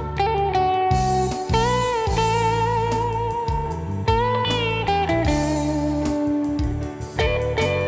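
Instrumental break of a slow love song: a lead guitar plays held notes that glide up into pitch and waver with vibrato, over a steady bass line.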